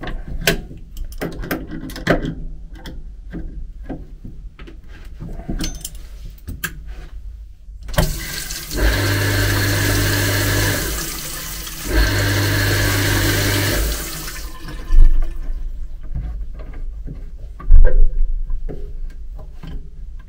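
Passenger-car toilet flushing: a loud rush of water and air with a steady low hum, starting about eight seconds in, dipping briefly, rushing again and stopping at about fourteen seconds. It comes after a leaking gasket joint under the bowl has been re-tightened. Scattered metallic clicks and taps from tools come before it, and two sharp knocks after.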